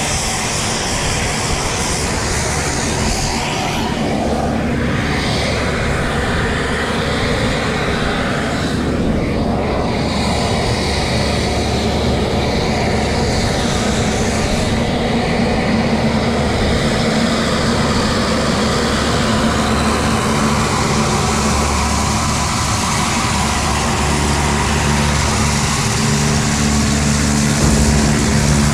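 Propeller-driven skydiving plane's engine droning steadily, heard from inside the cabin as it climbs.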